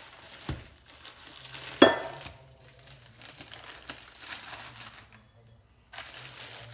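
Plastic packaging bags crinkling and rustling as they are handled and opened, with a sharp knock about two seconds in and a short lull near the end.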